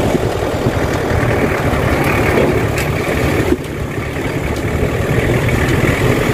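Engine of a pickup truck running as it drives along, heard from its open cargo bed as a steady low rumble with road noise; the sound eases briefly about three and a half seconds in.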